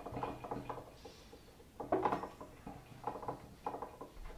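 Dry-erase marker squeaking and scratching on a whiteboard in several short strokes as words are written.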